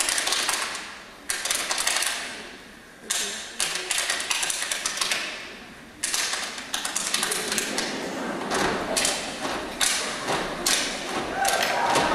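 Step team stepping in unison: sharp rhythmic stomps, claps and slaps in groups of quick hits, each group ringing off into the hall. Near the end, crowd cheering and screaming rises.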